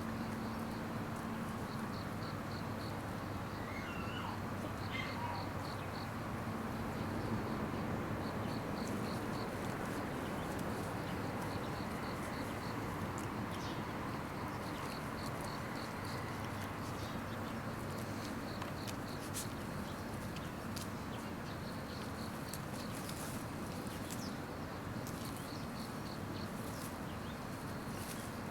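Insects chirping in repeated short trains of rapid high ticks over a steady background hiss and faint hum, with a few faint short whistles near the start.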